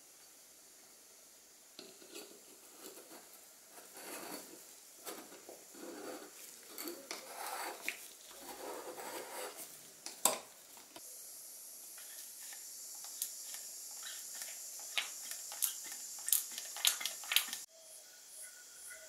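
Hand oiler being reassembled by hand: scrapes, rubbing and light clicks as the pump tube goes into the can body, then a steadier rasp with sharp clicks as the top is turned onto the metal threads of the neck. The sound cuts off abruptly near the end.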